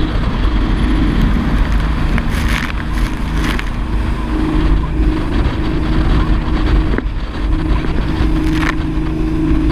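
Small speedboat's engine running steadily at speed, with wind buffeting the microphone and the hull slapping through choppy water, giving a few sharp knocks.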